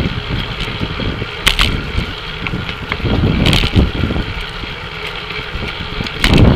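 Riding noise from a camera on a racing bicycle inside a pack of road-race bikes: a steady low rumble of wind and road vibration on the microphone. A few short sharp noises break through, the loudest near the end.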